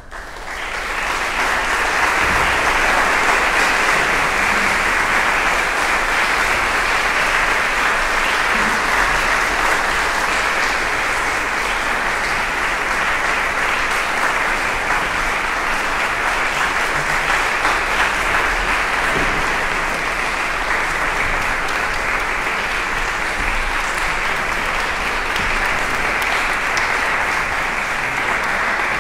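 Audience applauding: the clapping starts at once, swells over the first couple of seconds, then holds steady and dense.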